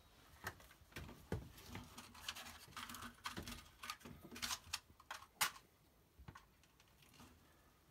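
Faint handling noise: scattered light clicks and rustles, dying down after about six seconds.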